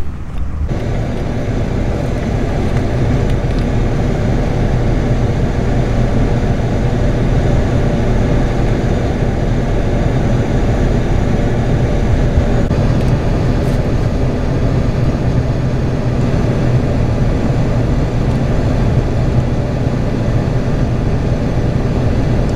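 Steady drone of a truck driving, engine and road noise running evenly.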